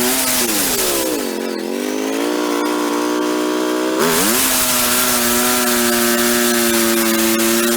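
Wood-Mizer LX150 bandsaw mill's engine running steadily, its speed sagging about half a second in and staying lower for about three seconds, then revving back up at about four seconds and running steady again with the high hiss of the band blade.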